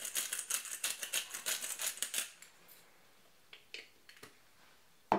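A seasoning shaker shaken rapidly to sprinkle dry chicken seasoning, a fast even rattle of the dry granules for about two seconds. Then a few light clicks, and a sharp knock near the end as the container is put down.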